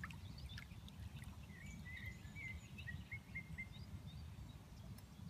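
A few faint splashes from a hooked tench at the surface right at the start, over a steady low rumble. In the middle a bird calls a quick run of about six short chirps.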